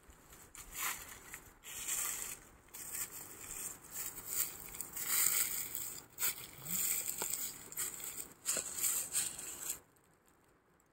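Footsteps crunching and rustling through dry fallen leaves, an uneven series of steps that stops near the end.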